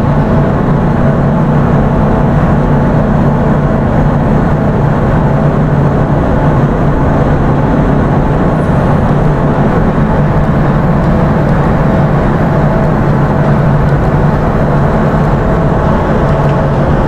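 Ship's machinery running with a loud, steady drone and a constant low hum, heard on the aft mooring deck during an undocking.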